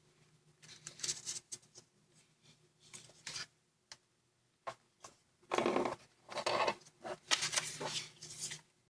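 A square of origami paper rustling and crinkling as fingers fold and crease it: short crisp scratches, a few at first, then a denser, louder run in the second half. A faint steady hum lies underneath.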